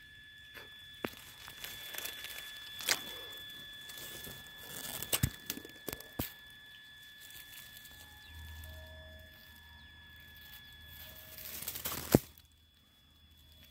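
Dry leaves and grass rustling and crackling, with scattered sharp crunches, the loudest about twelve seconds in.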